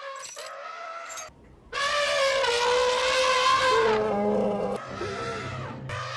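Elephant trumpeting: a call that breaks off about a second in, a brief pause, then a loud, long trumpet lasting about two seconds that sinks slightly in pitch, followed by quieter, lower sounds.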